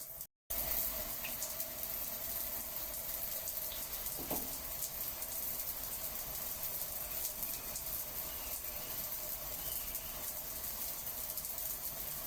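Steady rushing of running water, breaking off for a split second near the start.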